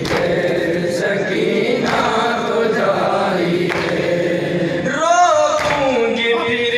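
A group of men chanting a Shia noha (lament) in unison, with hands striking chests in matam about once a second. About five seconds in, a single male voice leads with a wavering, held line.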